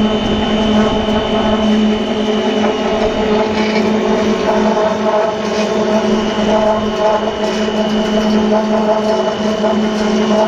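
Cold-rolling ribbed steel wire machine running steadily, its motor and drive humming with a constant high whine as the wire is drawn through the rolling head and round the capstan drum.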